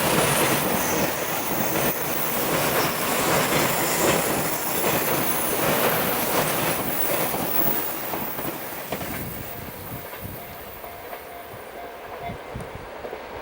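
A Chuo East Line limited express electric train passing close by, with a dense running noise and repeated clacks of the wheels over rail joints. It fades away from about eight seconds in.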